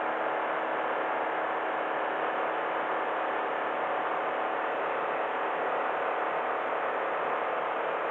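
Steady in-cabin noise of a Honda N-BOX kei car descending a long hill in L range: tyre and road rumble with an even engine hum as its 660 cc three-cylinder engine holds the car back by engine braking.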